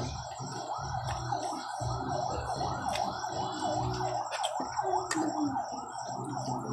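Siren-like electronic wail sweeping up and down about three times a second, over a low steady hum.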